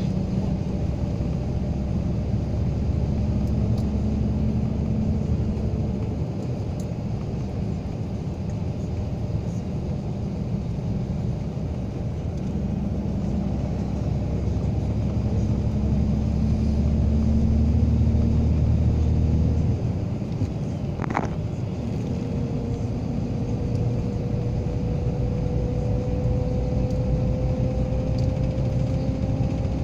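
A car in motion heard from inside the cabin: a steady low engine and road drone. About twenty seconds in the drone drops, there is one short click, and then a tone rises slowly as the car gathers speed.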